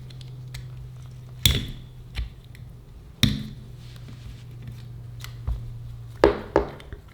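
Sharp metallic clicks and clacks of a Yale night latch's internal parts being fitted and worked by hand: a few single knocks spread out, then two in quick succession near the end, over a steady low hum.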